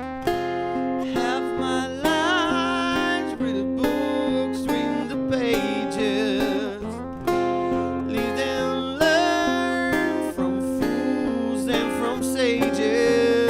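Live band music: strummed acoustic guitar chords with a singer's voice coming in and out over them.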